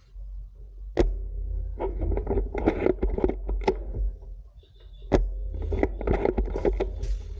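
Airsoft sniper rifle firing two sharp shots about four seconds apart. Each shot is followed by a second or two of rapid clattering and knocking, over a steady low rumble of wind or handling noise on the microphone.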